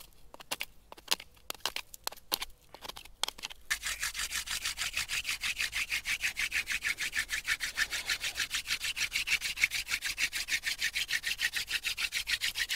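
For the first few seconds, a sharp stone scraping a wooden stick in short, uneven strokes. About four seconds in, a hand-drill friction fire starts: a wooden spindle spun back and forth between the palms, drilling into a wooden hearth board with a fast, even rubbing of several strokes a second, working up toward smoke.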